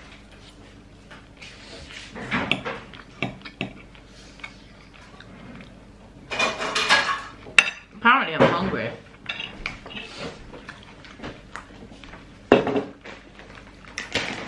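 Metal fork clinking and scraping on a plate while eating, in short, irregular clicks.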